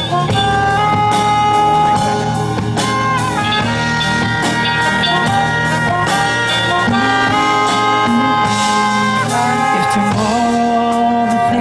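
A live band playing an instrumental passage: horns holding long chords that change every second or two over a steady drum beat.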